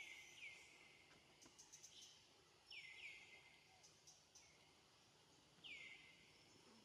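Faint bird calls: a short note that slides down and levels off, given twice in quick succession at the start, twice again about three seconds in, and once more near the end.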